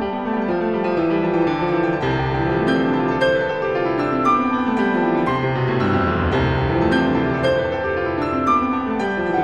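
Instrumental background music led by piano, with deeper bass notes coming in about two seconds in.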